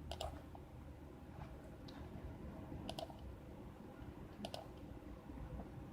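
A few scattered computer mouse clicks, two of them in quick pairs, over a faint low hum.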